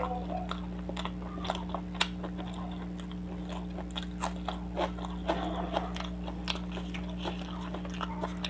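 Close-miked chewing of fish curry and paratha eaten by hand, with many short, irregular mouth clicks and crunches. A steady low hum runs underneath.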